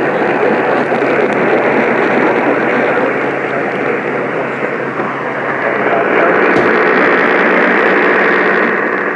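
Radio static: a steady hiss from a weather radio receiver, held in a narrow band like a telephone line, growing louder and brighter about six seconds in.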